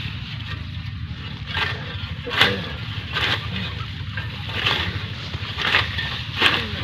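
Long-handled grass-cutting blade swishing through thick, tough fodder grass, six strokes about a second apart starting a second and a half in, over a steady low rumble.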